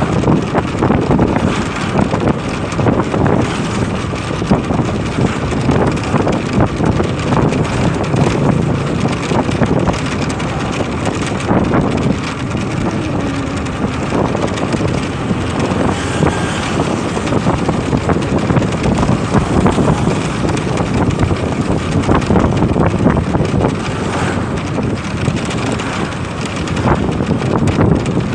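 Motorcycle engine running while riding along, with heavy wind buffeting the microphone.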